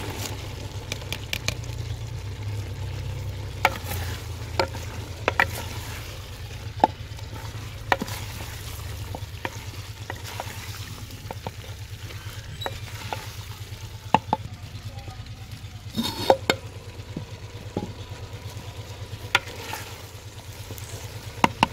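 Diced carrots and peas sizzling in oil and masala in a clay handi while a wooden spoon stirs them, knocking irregularly against the pot's clay sides.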